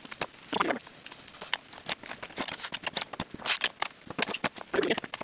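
Manual tire changer's bead breaker being worked on a small mower tire: a run of short knocks and clicks from metal and rubber, with a few louder, longer sounds about half a second in, around three and a half seconds and near the end.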